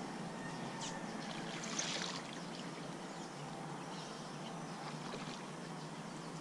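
Hooked fish splashing at the water's surface as it is played on light line, a couple of soft splashes over a steady hiss.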